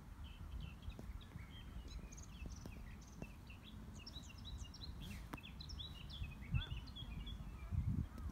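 A small songbird singing a long, quick run of high chirps and twitters, over a low rumbling noise.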